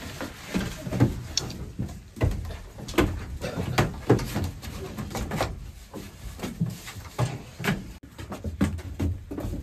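Irregular knocks, clunks and footfalls as children climb the steps of a bus and clamber over its floor and bench seats.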